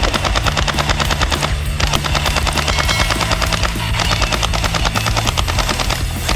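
Electric toy blaster firing on full auto, a fast rattle of about ten shots a second in three long bursts with brief breaks between them.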